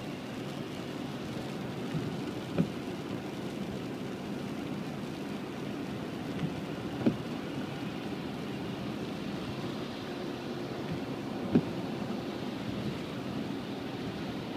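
Steady noise of rain and tyres on the wet road, heard inside a moving car's cabin. Three knocks come at even spacing, about four and a half seconds apart, as the windscreen wipers beat at intermittent setting.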